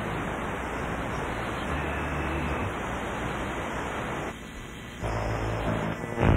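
A steady, even hiss of noise with a low hum beneath it, which drops away a little after four seconds in. A low drone comes back about five seconds in, and plucked strings begin right at the end.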